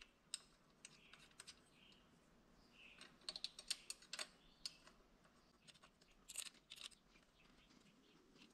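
Faint, scattered small clicks and taps of hands handling the end of a sound bar and its round mounting bracket, bunched into two short flurries about three and six seconds in.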